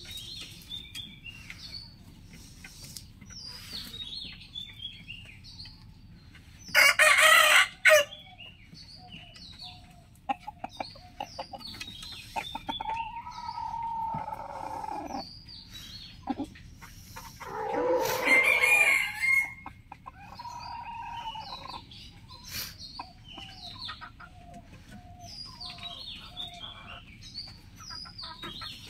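Roosters crowing among clucking chickens, with many short, high chirps running throughout. The two loudest crows come about seven seconds in and near the middle, with a long, held call between them.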